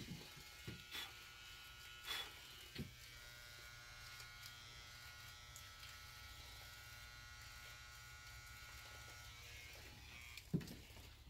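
Electric shaver buzzing steadily and faintly as it shaves a man's head. A few brief soft knocks come over it about a second and two seconds in and again near the end.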